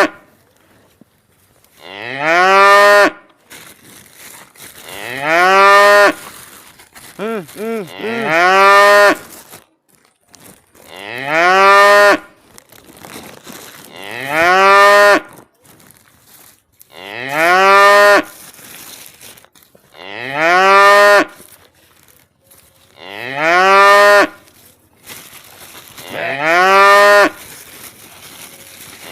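Cow mooing over and over, one long loud moo about every three seconds, each swooping up at the start and then held for about a second. A few short, wavering calls come between two moos near the first third.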